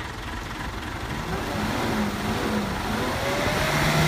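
Mitsubishi L300 pickup's engine revving hard under load, its pitch wavering and climbing over the second half, as its wheels spin in loose dirt while it is pulled on a tow rope.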